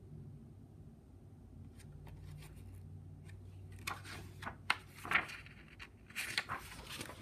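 Soft rustling and scraping of something being handled, loudest from about four to seven seconds in with a few sharp clicks, over a low steady hum.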